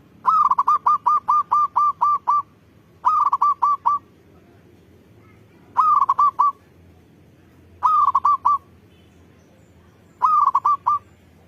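Zebra dove (perkutut) cooing in five bursts of quick repeated coos. The first burst is the longest, about nine notes over two seconds. The later ones are shorter runs of four or five notes, each opening with a longer rising note.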